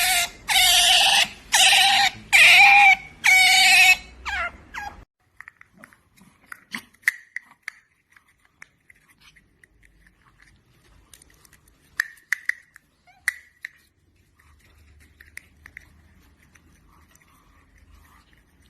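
Pet otter calling, six loud, shrill calls in quick succession in the first four seconds, each about half a second long, then only faint short chirps and small clicks.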